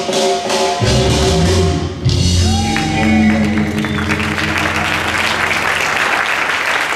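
A song ends on a long held final chord, and audience applause rises about three seconds in and continues over the fading music.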